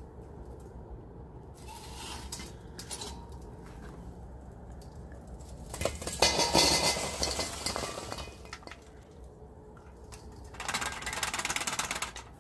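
Hot charcoal briquettes tipped from a chimney starter into a Weber Smokey Joe kettle grill, clattering and clinking against the steel bowl. There are two bursts of clatter, a loud one about six seconds in and another near the end.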